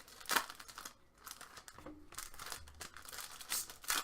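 Hockey card pack wrappers being torn open and crinkled by hand, in irregular rustling bursts, loudest about half a second in and again near the end.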